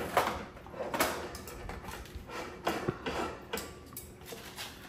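Kitchen utensils, a spatula and spoon, knocking and scraping against baking pans, bowls and a slow cooker: a run of irregular light clinks and taps.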